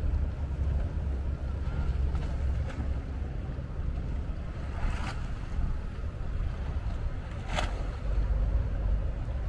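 Marina quayside ambience: a steady low rumble with wind buffeting the microphone, and a few sharp knocks, the clearest about five and seven and a half seconds in.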